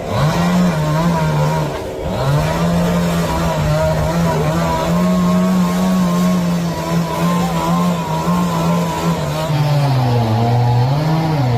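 Chainsaw running at high revs, dropping out briefly about two seconds in, and sagging in pitch near the end as if under load while cutting wood.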